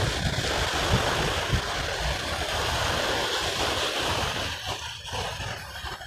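Small sea waves breaking and washing up onto a sandy shore, with wind buffeting the microphone. The wash eases off near the end.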